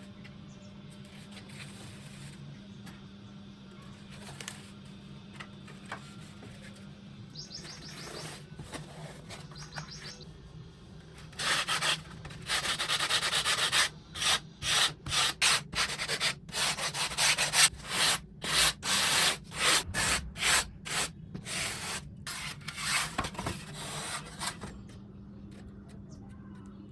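Sanding of a thermocol foam wing: quiet scratching at first, then about halfway in a long run of quick, loud back-and-forth rubbing strokes that stops shortly before the end.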